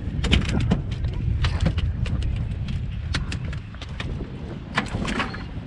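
A run of sharp clicks and knocks, clustered near the start and again near the end, over a steady low rumble of wind on the microphone.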